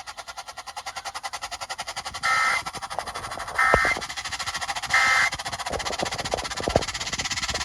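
Three short bursts of Emergency Alert System digital data tones, the buzzy warble of a SAME end-of-message code, each about a third of a second long and about a second apart. They sit over a fast, even pulsing buzz.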